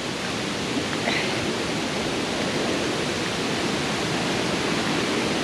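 Steady rush of a waterfall and cascading creek water.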